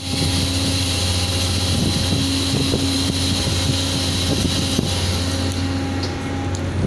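Steady low drone of shipboard machinery, with a higher hum that comes and goes, under a broad hiss of wind on the microphone that eases off near the end.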